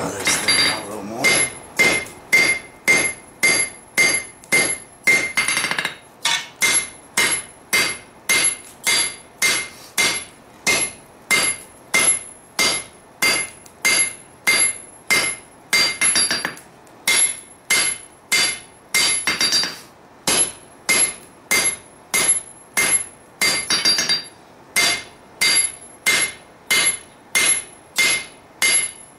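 Hand hammer striking a glowing steel sword blade on an anvil at about two blows a second, with a metallic ring after each blow: drawing out a claymore blade to length.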